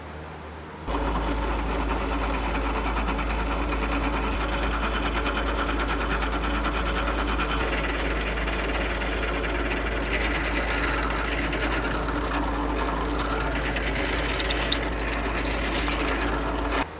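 A woodworking power tool motor starts about a second in, runs steadily with a strong hum, and cuts off sharply near the end. Short high-pitched squeals come twice, around the middle and near the end, as it cuts into the wood.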